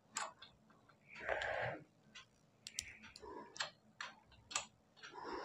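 Scattered light clicks and taps of sewing-machine parts and a screwdriver being handled as screws in the shuttle area are set, with a brief rustle about a second in.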